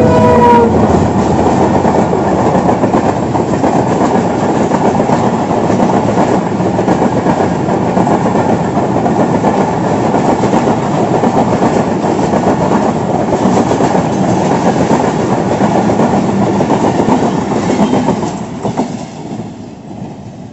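Diesel-hauled passenger train passing close by. The locomotive's horn cuts off about half a second in, and then the coaches' wheels clatter steadily over the rail joints. The sound falls away near the end as the last coach goes by.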